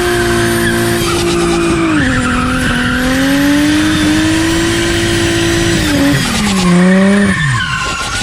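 Infiniti G35 with a rear-mounted turbocharger heard at the turbo's open intake: a strong steady whine that drops in pitch about two seconds in, then near the end slides down and falls away steeply, as with the throttle closing.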